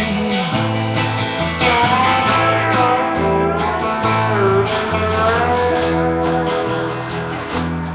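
Recorded song with guitar and bass: a steady run of bass notes under a plucked guitar melody.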